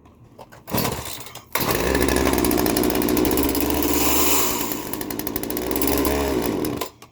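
Old Craftsman 42cc two-stroke chainsaw: a short burst about a second in, then it catches and runs loudly on the throttle for about five seconds, dropping in pitch before it dies suddenly near the end. The stalling is taken by the owner as a sign that the carburetor needs going through.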